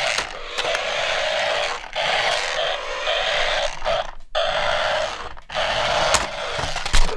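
Toy RC car's electric drive motor and gears buzzing as it drives and spins on a tabletop, in four runs of one to two seconds with short breaks between them. A thump near the end.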